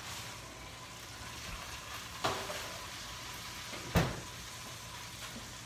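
Oven-roasted spatchcock chicken sizzling in its pan, a steady hiss. It is broken by two knocks, the second a louder thud about four seconds in.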